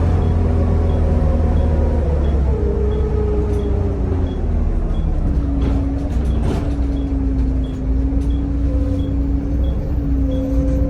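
Volvo B7TL double-decker bus with ZF automatic gearbox under way: a loud, steady low engine drone with a whine over it that falls in pitch between about two and five seconds in, then holds steady. A faint, regular tick comes about twice a second.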